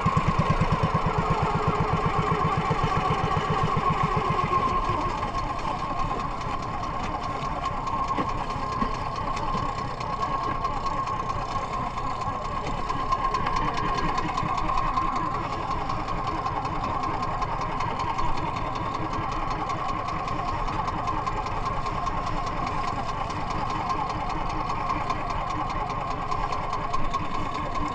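The engine of a small motorized outrigger fishing boat (bangka) running steadily under way, with water rushing past the hull. It is a little louder in the first few seconds, then holds even.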